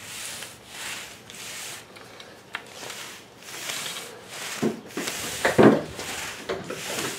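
Paint roller on an extension pole being pushed back and forth through wet sealer on stamped concrete, a soft rubbing swish with each stroke, about two strokes a second. A few louder knocks come about two-thirds of the way through.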